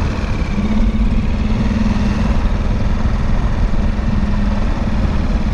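Tiller outboard motor running steadily under way, a constant engine hum, with strong wind buffeting the microphone.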